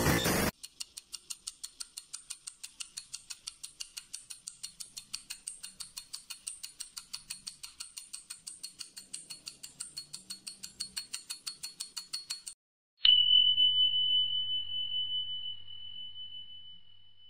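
Steady, rapid clock ticking, about five ticks a second, for about twelve seconds. It stops, and a single bell ding strikes and rings out, fading slowly. Half a second of loud static opens the clip.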